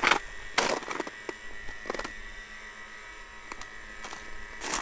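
Steady faint whine and hum from the A-10's twin JetCat model jet turbines running at low speed in their cooldown ('slow down') phase, fuel pumps off. A few brief rustles break in, the first right at the start and the last near the end.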